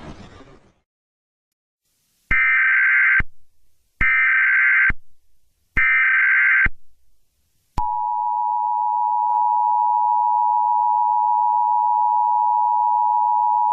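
Emergency Alert System header: three short bursts of digital data tones a little under a second each, followed about eight seconds in by the steady two-tone EAS attention signal, which holds. A loud noise fades out in the first second before the tones.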